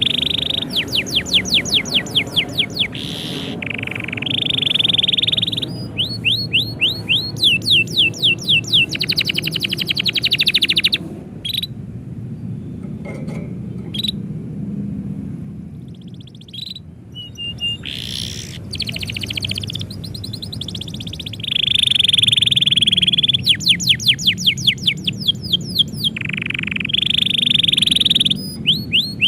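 Domestic canary singing a long song: fast rolls of rapidly repeated chirps alternating with sustained high trills, with a quieter stretch about halfway through, over a steady low background hum.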